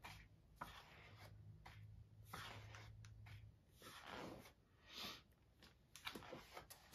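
Faint rustling of thin scrapbooking paper sheets being leafed through, several soft swishes about a second apart with a few light clicks.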